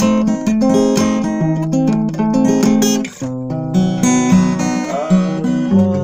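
Acoustic guitar music: plucked and strummed notes, with a brief pause about three seconds in and a short sliding note near the end.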